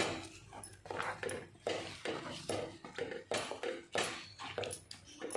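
Wooden spatula scraping and stirring a thick, grainy milk-and-sugar mixture against the sides of a kadhai, in repeated strokes about two a second, as the released water is cooked off.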